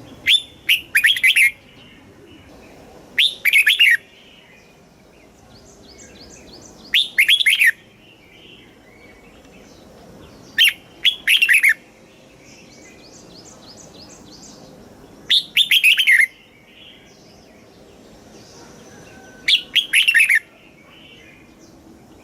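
Red-whiskered bulbul singing loud, short song phrases, six in all, one every three to four seconds. Fainter chirping sounds between the phrases.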